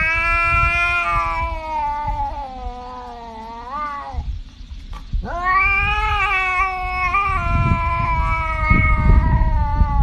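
Tabby cat yowling in two long drawn-out calls: the first lasts about four seconds and rises at its end, the second starts about a second later and slowly falls. A low rumbling noise runs underneath.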